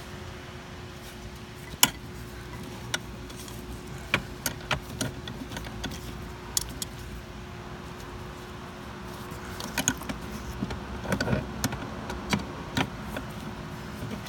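Irregular sharp metallic clicks and clinks of a box-end wrench working against a seized AC line fitting and nearby metal in an engine bay. The loudest knock comes about two seconds in, with a busier run of clinks near the end, over a faint steady hum.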